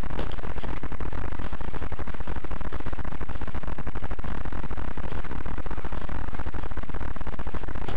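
Loud, steady electrical buzz and crackle from a helmet camera's faulty microphone, drowning out the surroundings.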